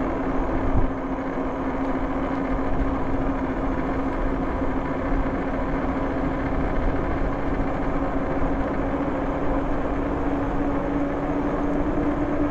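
RadRover e-bike riding on a wet road: the rear hub motor whines on one steady tone that edges higher near the end as the bike picks up speed, over a constant rush of wind and fat-tyre noise. A short thump comes about a second in.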